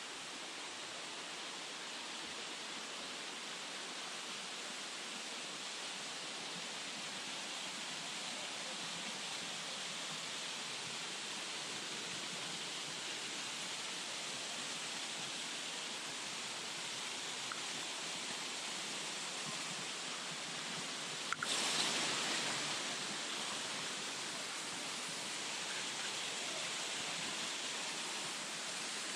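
Steady rushing of a waterfall, with a single sharp knock about three-quarters of the way through.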